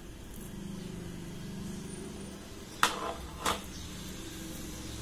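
Metal spoon tapping twice, about two-thirds of a second apart, while melted chocolate is spooned into a mold, over a steady low rumble.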